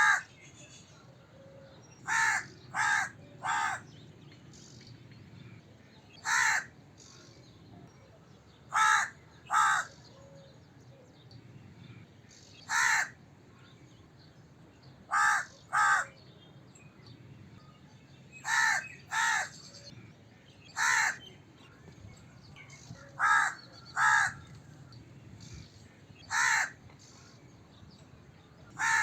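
A crow cawing: short, harsh caws given singly or in quick runs of two or three, a new run every few seconds.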